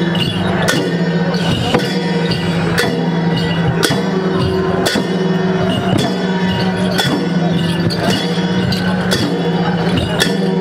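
Chyabrung, the large two-headed barrel drums of the Limbu and Yakkha dance, beaten in a steady dance rhythm, with a sharp strike about once a second. A steady low held tone and bright metallic ringing sound along with the drumming.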